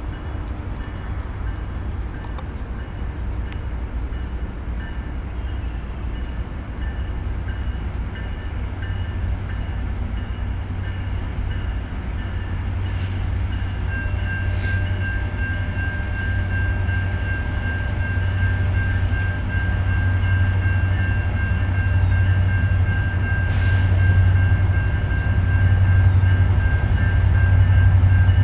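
Low diesel rumble of an approaching freight train's locomotives, an EMD SD70M-2 and a GE C40-8, growing slowly louder as the train nears. A faint steady high tone joins about halfway through.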